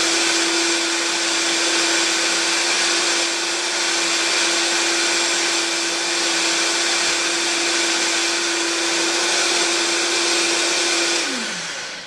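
Vitamix blender running at a steady high speed, blending a frozen strawberry daiquiri with ice. Near the end it is switched off and the motor winds down with a falling pitch.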